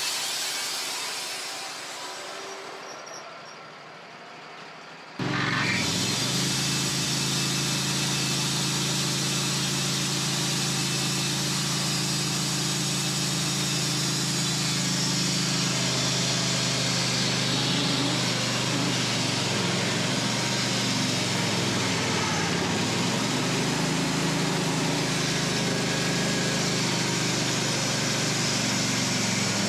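Wood-Mizer LT15 band sawmill running steadily, its band blade cutting through a hard maple log. A sound fades away over the first few seconds, then about five seconds in the mill noise cuts in abruptly at full level.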